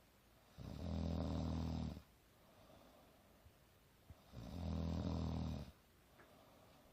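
Snoring: two long, low snores, each about a second and a half, about four seconds apart, with soft breathing between.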